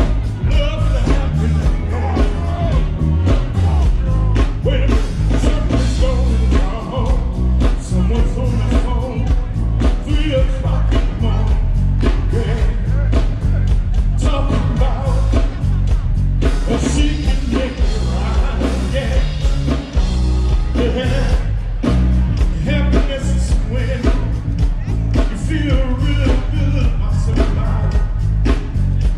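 A band playing a rock-and-roll song with a singer, over a heavy bass line and a steady drum beat.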